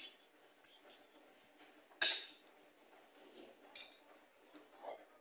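Fork and spoon clinking and scraping against a plate while eating, a handful of sharp clinks at uneven intervals, the loudest about two seconds in.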